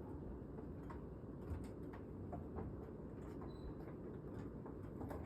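Light, scattered clicks and taps as the side brackets of a window unit are handled and fitted, over a steady low hum.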